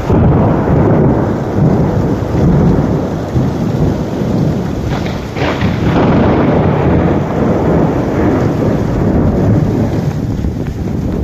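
Heavy rain and strong storm wind, the gusts buffeting the microphone in a loud, low rumble that swells and eases. The rumble jumps up sharply at the start.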